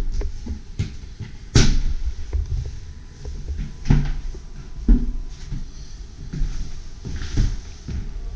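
A painted cabinet door being opened and shut, with sharp knocks and clicks from the door and its catch. The loudest knock comes about a second and a half in, and two more come around four and five seconds. A low rumble runs underneath.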